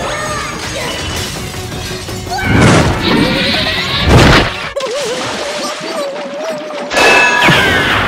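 Cartoon sound effects over music: two loud crashing impacts about two and a half and four seconds in, a single wavering tone, then a loud splash into a swimming pool near the end.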